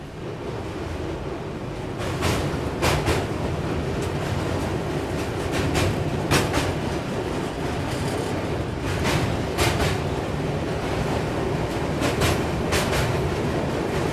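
Indian Railways superfast express train running on the rails as it pulls out of a station, heard from inside a coach. The running noise grows louder about two seconds in, and pairs of wheel clacks (clickety-clack) come roughly every three seconds.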